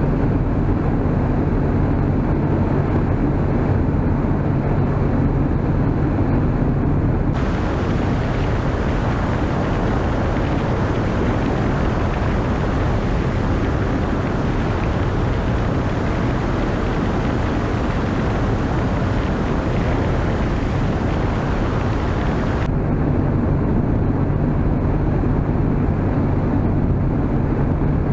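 Engine and propeller of a Z602 XL light aircraft running steadily on final approach, heard inside the cockpit. About seven seconds in the sound turns into a brighter rushing of wind and engine, which lasts about fifteen seconds before the steadier cockpit engine sound returns.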